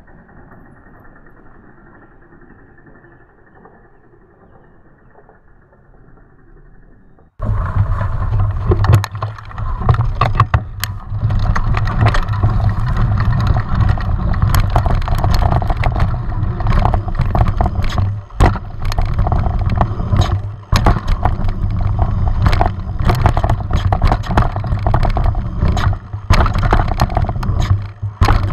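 Mountain bike ridden along a dirt trail, heard from a camera on the rider: wind buffeting the microphone with a steady low rumble, and the bike clattering and rattling over the ground with many sharp knocks. The first seven seconds or so are quiet and muffled, then the sound cuts in suddenly loud.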